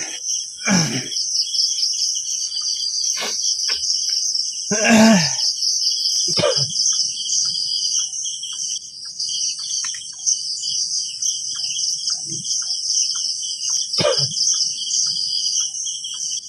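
A night chorus of crickets chirping steadily and densely. A few short human voice sounds break in, the loudest about five seconds in.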